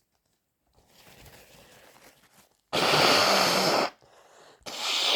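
A person with a head cold blowing their nose hard twice, each blow a loud, noisy rush about a second long with a slight nasal honk, after a few seconds of faint congested breathing.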